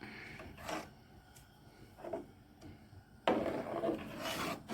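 Cookware scraping and rubbing on a stove: a few short scrapes, then a louder, longer rough scrape from a little past the middle.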